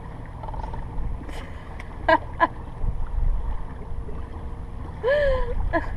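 Steady low wind and water noise on an open bass boat. A couple of brief voice sounds come about two seconds in, and a longer voice sound rises and falls near the end.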